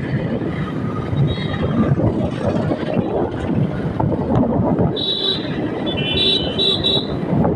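Motorcycle riding along a street, its engine running under heavy wind buffeting on the microphone. From about five seconds in, a run of short high-pitched tones comes in over it.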